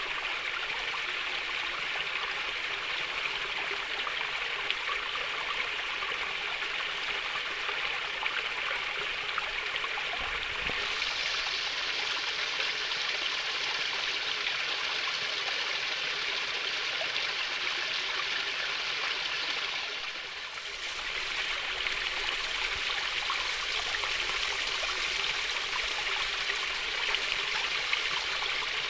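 Water trickling and babbling in a small flowing stream, a steady, even splashing hiss. The sound briefly drops a little about twenty seconds in, then carries on as before.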